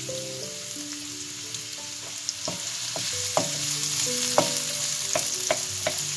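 Chopped shallots sizzling in olive oil in a nonstick wok. From about two seconds in, a wooden spatula stirs them, knocking and scraping against the pan about eight times.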